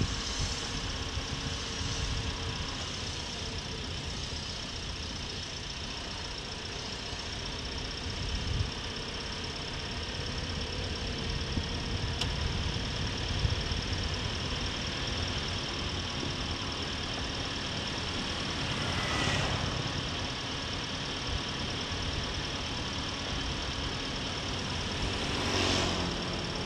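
A vehicle's engine running steadily on the move, with road and wind noise. Two brief rushing swells come late on, about 19 and 26 seconds in.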